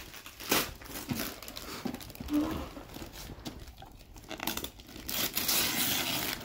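Wrapping paper crinkling and tearing as a present is unwrapped, in irregular rustles that grow denser in the second half.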